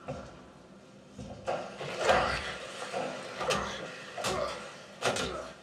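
Film fight-scene sound effects played back through an SVS center-channel speaker: a quiet moment, then a run of heavy blows and scuffling with about five sharp hits.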